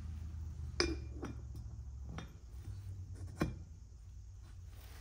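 Light metallic clinks as a piston ring is pushed down into a Honda Foreman 450's cylinder bore to check its end gap. The two sharpest come about a second in and at about three and a half seconds, with a low steady hum underneath.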